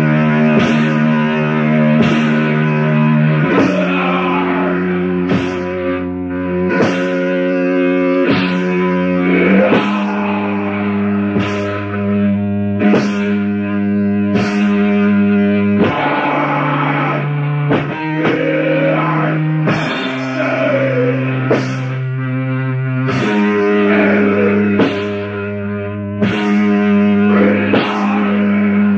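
Slow doom metal: heavily distorted electric guitar chords held for a few seconds each, over drum hits about once a second.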